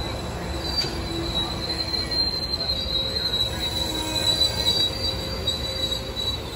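Bilevel passenger cars of an Amtrak Pacific Surfliner train rolling past, their running gear squealing in a thin, steady high tone over the rumble of steel wheels on rail.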